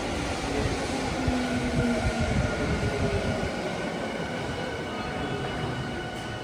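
Saitama Railway 2000 series electric train pulling out of a station: a low rumble of wheels on rail with a run of clunks in the first couple of seconds, and thin steady whining tones from the running gear above it.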